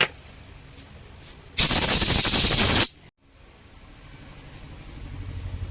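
Pressure washer at work: a loud burst of spray hiss about a second and a half in, lasting just over a second and cutting off sharply. Then a low, pulsing motor hum builds steadily toward the end.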